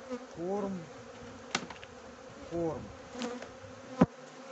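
Honeybees buzzing steadily around an open hive, with wooden frames clacking as they are shifted in the hive box: a click about a second and a half in and a sharper knock about four seconds in.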